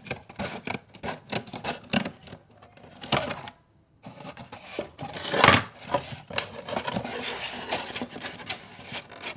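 Scissors cutting cardboard: a run of irregular snips and scrapes, with a short pause a little before four seconds in and the loudest noise about halfway through.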